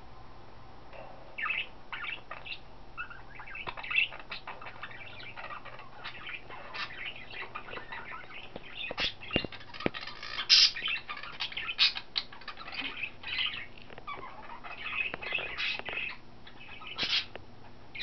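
Pet budgerigars chirping: a run of short, quick calls that starts about a second and a half in and gets busier through the second half.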